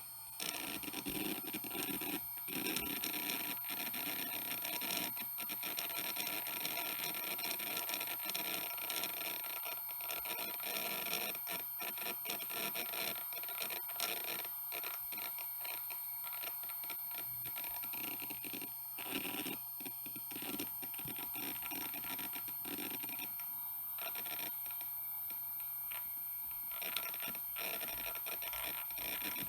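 Hitachi Deskstar 7K80 80GB IDE hard drive seeking continuously under the load of a Windows 7 installation: a dense, irregular chatter of head-actuator clicks and scratches, with a steady high whine underneath.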